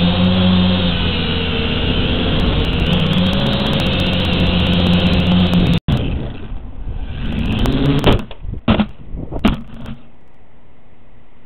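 JJRC H8D quadcopter's motors and propellers buzzing steadily in flight, then cutting out and running unevenly as the drone loses control and tumbles down, with a few sharp knocks near the end. The sound then gives way to a steady hiss of static once the video signal is lost.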